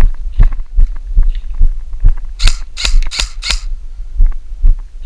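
Footsteps thudding at a steady walking or jogging pace, about two and a half a second, jolting the body-worn camera. In the middle come three sharp airsoft gun shots about half a second apart.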